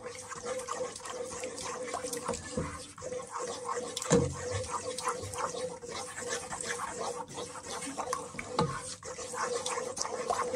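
Wooden spoon stirring thickening gravy in a stainless steel pot: wet sloshing with the spoon scraping and knocking against the pot, with one louder knock about four seconds in. A steady hum runs underneath.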